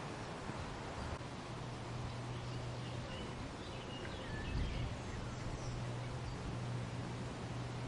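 Wind blowing through a weeping willow, its leaves rustling steadily, with a few faint bird chirps in the middle and a steady low hum underneath. A gust swells briefly about halfway through.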